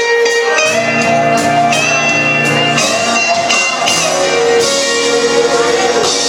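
A blues band playing, with guitar to the fore over bass and drums.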